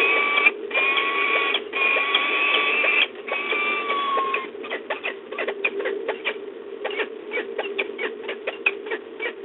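Peregrine falcons calling during mating: a run of drawn-out, steady-pitched calls about a second each with short breaks, giving way after about four and a half seconds to rapid clicky chittering notes. A steady hum from the nest-box microphone sits underneath.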